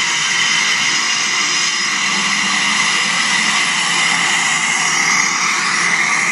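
Twin Otter turboprop engines running steadily on the ground, a constant rushing hiss with no change in pitch, heard played back through a TV speaker.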